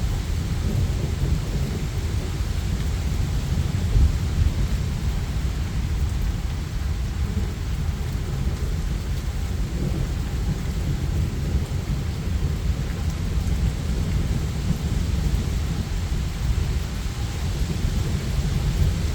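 Thunderstorm: steady rain hissing, under continuous low rumbling thunder that swells slightly about four seconds in.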